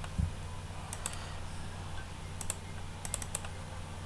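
Scattered sharp clicks and taps at a computer, about seven in all, some in quick pairs, over a steady low hum.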